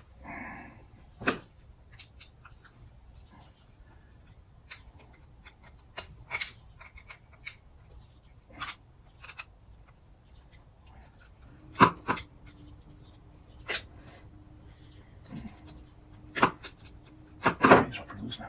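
Small metal and plastic parts of an outboard fuel pump and carburetor being handled on a workbench: scattered clicks and clinks, with a few sharper knocks near the end. A faint steady tone comes in about two-thirds of the way through.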